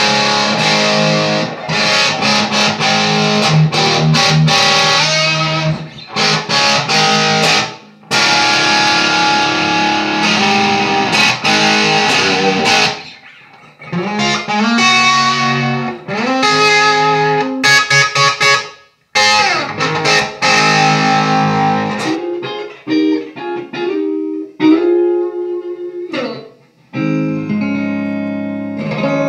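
Duesenberg Starplayer TV electric guitar played through a Divided By 13 RSA 31 amplifier. For the first half it plays strummed chords that ring out, broken by brief stops. A few sliding notes follow in the middle, and the last part has sparser, lighter picked notes and short riffs.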